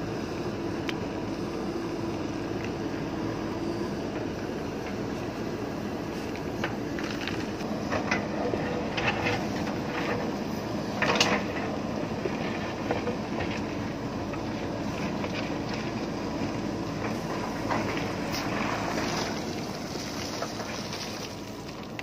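JCB 3DX backhoe loader's diesel engine running steadily while the backhoe bucket digs into loose stone. Rocks clatter and knock against the bucket in scattered bunches, with the sharpest knock about halfway through.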